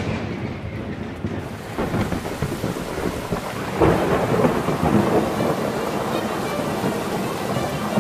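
Heavy rain with thunder rumbling, a steady rush of rain under long rolls of thunder; a louder roll swells about four seconds in.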